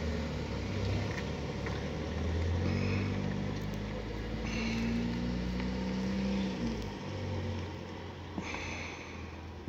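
A motor vehicle's engine running, a low steady hum that swells from about two seconds in and fades after about seven seconds.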